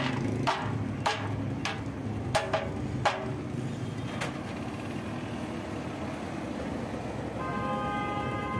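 A wooden block knocked against an aluminium sliding-door frame profile, about eight sharp knocks in the first four seconds, seating the frame's joints during assembly. Under it a vehicle engine rumbles steadily, and near the end a steady sound of several held tones begins.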